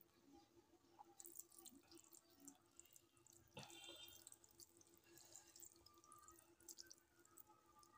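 Faint wet squishing and small clicks of fingers mixing rice and dal on a metal plate, with a slightly louder sound about three and a half seconds in.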